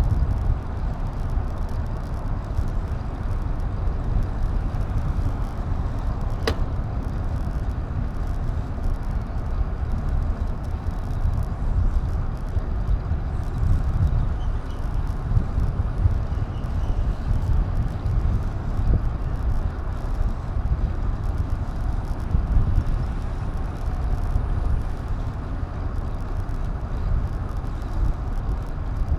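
Steady low wind and road rumble on an action camera's microphone while riding, with one sharp click about six and a half seconds in.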